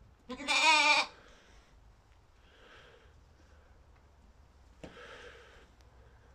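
One-month-old Gissar ewe lamb bleating once: a single wavering bleat just under a second long, starting about half a second in.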